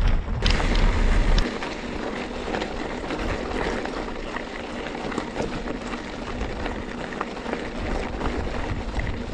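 Mountain bike tyres rolling over a gravel track, a steady hiss of grit with many small ticks of stones. Wind noise on the microphone adds a low rumble for about the first second and a half.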